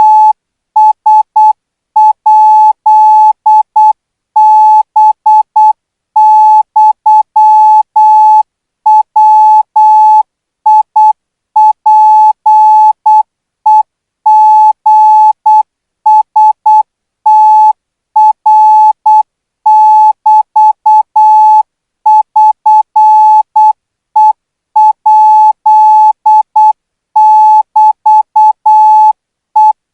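Morse code practice tone: one steady mid-pitched beep keyed on and off in short dots and longer dashes, grouped into characters with short gaps between them, sending Thai Morse code at about 12 words per minute.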